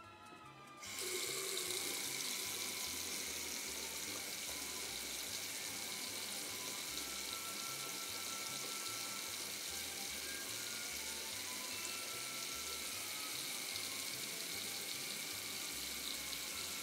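Bathroom sink tap running: a steady water noise that starts about a second in and holds unchanged.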